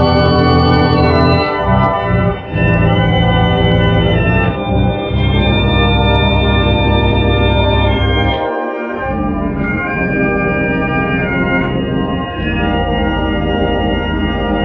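Sustained organ-like chords, each held for a second or two before moving to the next, with the bass dropping out briefly about halfway through.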